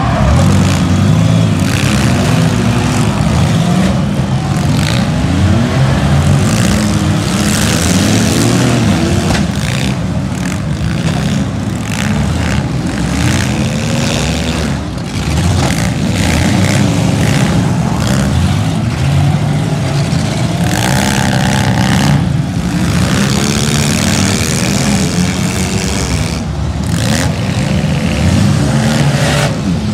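Many street-stock demolition derby cars' engines revving hard all at once, pitches rising and falling as they accelerate, with scattered crunching impacts of cars ramming each other.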